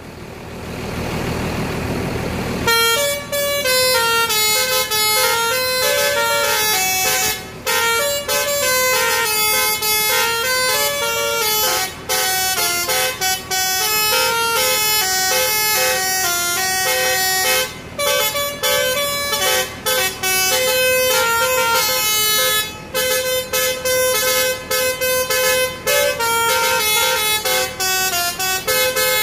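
Bus's Basuri musical air horn (a 'telolet' horn) playing a fast tune, its notes stepping up and down with brief gaps. It starts after about two and a half seconds of a steady rushing noise.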